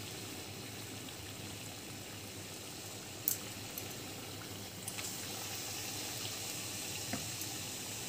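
Besan-battered potato rolls deep-frying in hot oil: a steady sizzling, bubbling hiss. A sharp click about three seconds in and a couple of fainter ones later.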